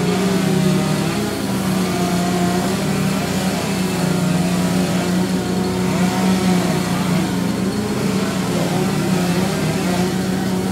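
Small engines running: a steady low drone with higher tones that rise and fall like engines being revved.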